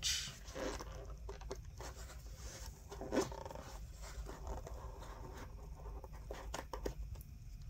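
Hands lifting a wristwatch on its cushion out of a cardboard presentation box: faint rustling of the box insert with scattered small clicks and scrapes, and one slightly louder handling sound about three seconds in.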